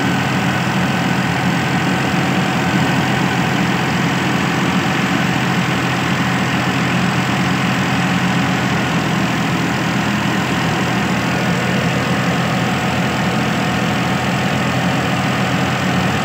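Fiat 480 tractor's three-cylinder diesel engine running steadily at constant speed under load, driving a thresher, whose drum whirs along with it.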